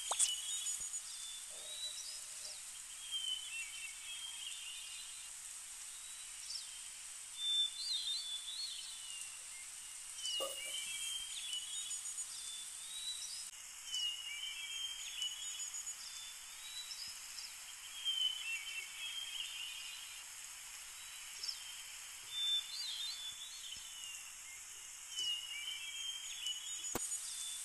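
Nature ambience: short bird chirps every few seconds over a steady high-pitched hiss, with the same chirp pattern recurring.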